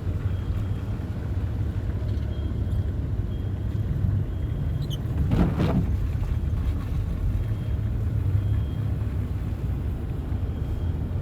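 Car road and engine noise: a steady low rumble, with one short louder sound about halfway through.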